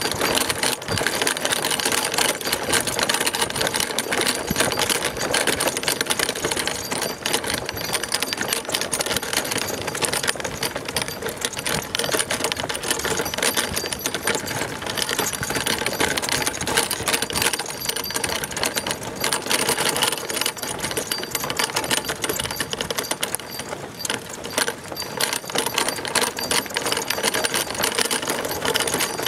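Dog-pulled sacco cart rattling as it rolls along a dirt trail: a dense, unbroken run of rapid ticks from the metal frame and wheels jolting over the ground.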